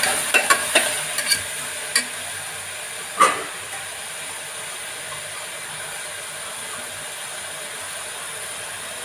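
Potatoes, onions and carrot frying in a pressure cooker. A metal slotted spoon scrapes and knocks against the pot several times in the first two seconds, with one sharper knock about three seconds in, then a steady sizzle.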